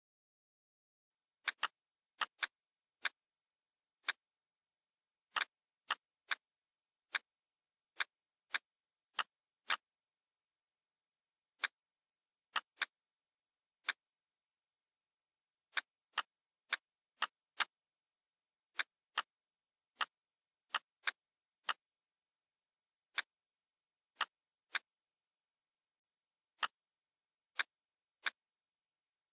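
Computer mouse and keyboard clicks at irregular intervals, some in quick pairs like double-clicks, with dead silence between them.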